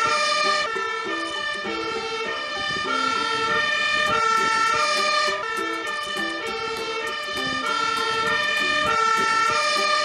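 Fire engine siren sounding, alternating between higher and lower notes in a repeating two-tone pattern.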